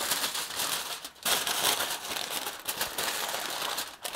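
Heavy-duty industrial aluminium foil crinkling and rustling as it is folded and pressed around a piece of meat, with short pauses about a second in and near the end.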